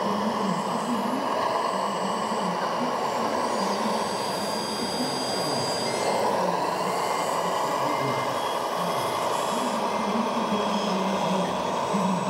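Engine sound of a radio-controlled construction machine model running over steady hall noise, with a faint beep repeating about every two-thirds of a second from about halfway through, like a reversing beeper.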